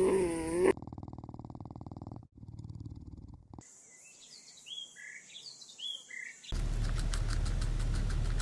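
A run of short animal clips cut one after another. First a pitched animal call, then a fast even rumbling pulse like a purr, then a string of short high chirps, and near the end a steady low hum with faint ticking.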